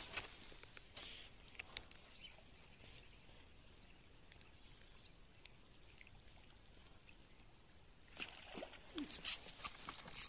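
Faint outdoor quiet broken by scattered small clicks. In the last two seconds it gives way to a busier patch of rustling and knocks.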